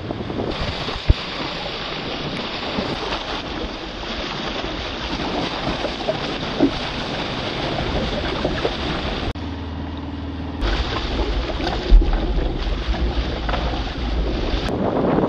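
Wind and sea noise aboard a sailing sloop under way: waves and rushing water with wind buffeting the microphone. The sound changes abruptly about nine seconds in, and a heavy low wind rumble follows for a few seconds.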